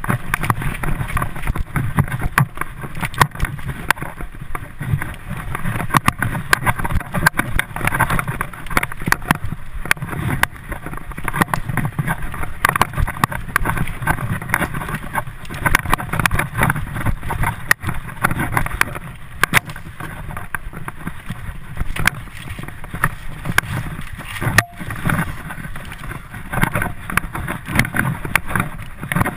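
Mountain bike riding fast down a dirt forest trail: a steady rumble of the ride with the bike and camera mount rattling and knocking constantly over bumps.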